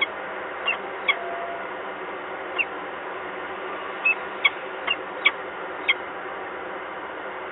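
About nine short, high bird chirps, each dropping in pitch, come at irregular intervals over the first six seconds. Under them runs a steady hiss of rain.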